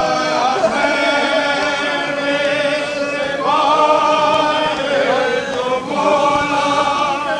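A crowd of men chanting together in long, drawn-out phrases, each held for a few seconds. A new phrase starts on a higher note about three and a half seconds in, and another about six seconds in.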